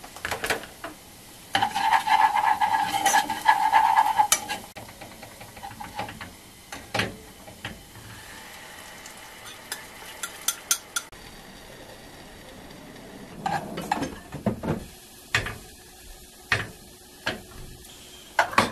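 Cooking in a small saucepan on a gas stove: a loud few seconds of sizzling near the start, then a spoon clinking and scraping against the pan in scattered sharp knocks.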